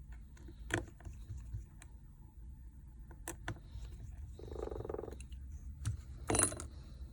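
Scattered small clicks and taps of tools and small parts being handled during a smartphone repair, the loudest near the end, with a short buzzing tone about halfway through.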